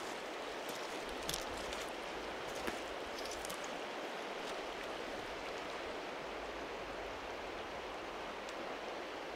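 Shallow river water flowing steadily over gravel, a constant rushing wash. A few light crunches of footsteps on the gravel come in the first few seconds.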